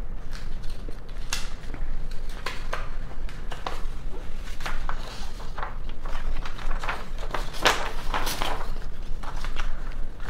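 Sheets of printed paper rustling and crinkling as they are handled, shuffled and turned over by hand, in short rustles a second or so apart over a steady low hum.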